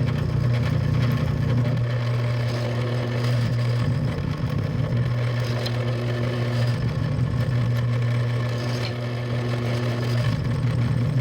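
Electric drill running steadily while drilling holes in a strip of aluminum, its hum breaking up into a rougher noise three times as the bit cuts.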